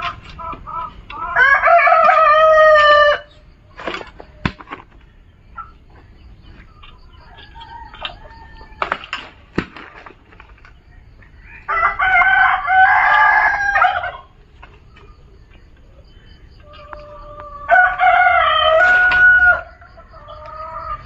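A rooster crowing three times, each crow about two seconds long, with a few sharp knocks in between.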